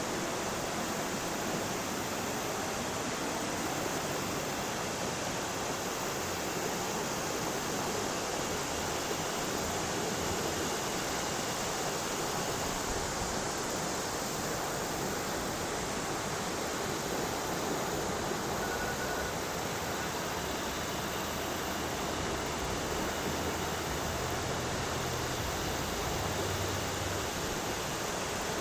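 Yellow River's water rushing steadily over its bed, an even, unbroken hiss of flowing water.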